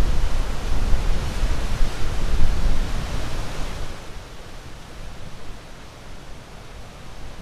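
Ocean waves washing onto a shore: a wave surges for the first few seconds, then recedes and quiets about four seconds in.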